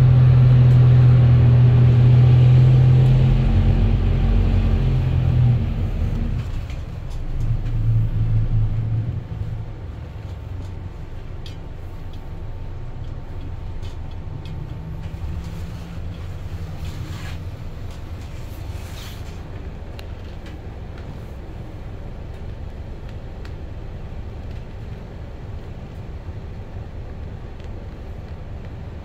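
City bus engine heard from inside the cabin: a loud low drone as it pulls away, easing off about six seconds in, pulling again briefly around eight seconds, then settling to a quieter steady rumble.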